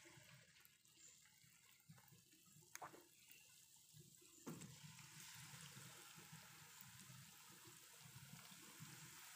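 Faint sizzling of hot oil as battered banana slices deep-fry in a wok. The sizzle grows fuller about halfway through as another slice goes in, with a couple of light knocks just before.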